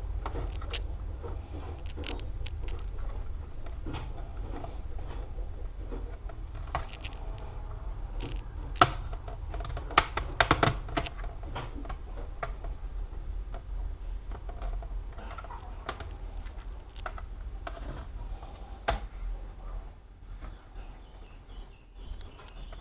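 Light clicks and taps of plastic laptop casing parts and small tools being handled during disassembly, with a few sharper snaps about nine to eleven seconds in and again near the end, over a steady low hum.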